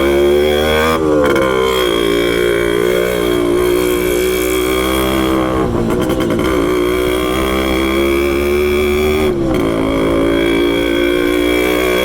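Yamaha RX200 motorcycle engine running with its air filter removed, held at raised revs that drop sharply and pick back up about three times.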